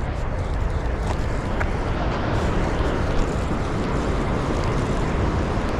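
Steady roar of water rushing below a dam, with a heavy low rumble that holds level throughout.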